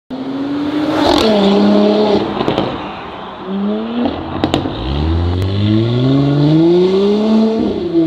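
Porsche Cayenne E3's 3.0-litre turbocharged V6 through an ARMYTRIX valvetronic exhaust with decatted downpipe, pulling hard. The engine note drops at a gear change about a second in, then climbs steadily through a long acceleration from about five seconds in and drops again at an upshift near the end. A few sharp exhaust cracks, the loudest about four and a half seconds in.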